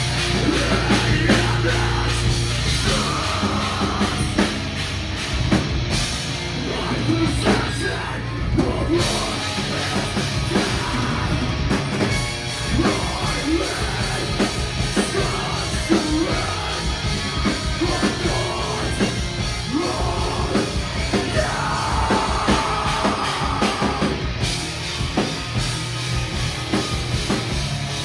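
Heavy rock band playing live, with drum kit and electric guitars and yelled vocals.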